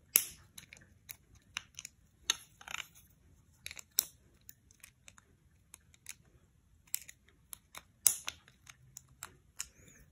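Irregular small clicks and taps of 3D-printed plastic parts and small metal hardware being handled during assembly, the sharpest about a fifth of a second in, about 4 seconds in and about 8 seconds in.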